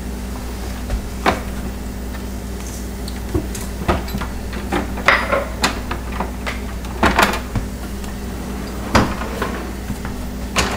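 Scattered light clicks and knocks of seasoning containers and kitchen items being handled at the stove, some in quick pairs, over a steady low hum.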